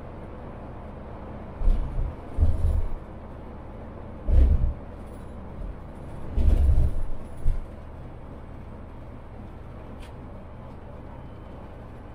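Steady low rumble of a Mercedes-Benz Travego coach on the move, broken by several loud, deep thumps in the first eight seconds and a single sharp click near ten seconds.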